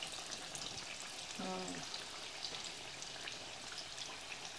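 Chebureki pasties frying in a generous amount of olive oil in a pan: a steady sizzle full of tiny crackles and pops.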